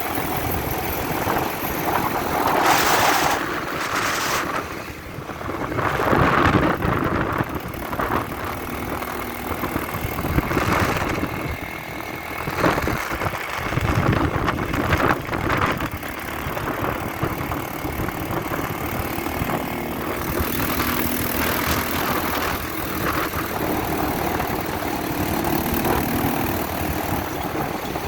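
ATV engine running as it is ridden, its loudness rising and falling several times.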